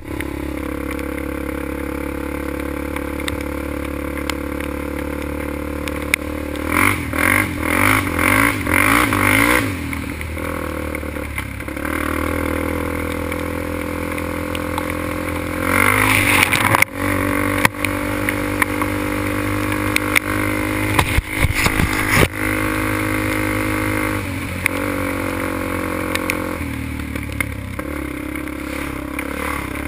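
Quad's engine running while it is ridden on a dirt trail, with a run of throttle bursts, each rising and falling, about seven to ten seconds in and a louder rev around sixteen seconds. Sharp knocks and clatter around twenty-one to twenty-two seconds.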